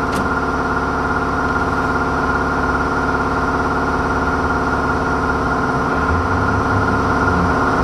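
Loud, steady machine hum made of many even tones, holding level without change.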